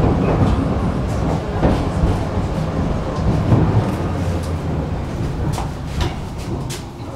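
Tram running on its rails, a steady low rumble with a few knocks that dies down near the end as the tram slows for a stop.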